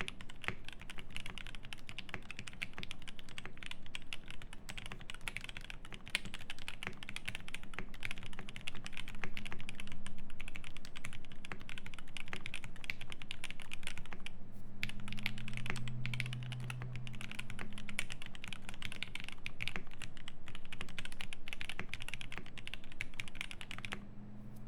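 Fast, continuous typing on a Cyberboard R3 mechanical keyboard with lubed Tealios V2 linear switches, an aluminium plate and GMK keycaps. There is a brief pause about halfway through, and the typing stops about a second before the end.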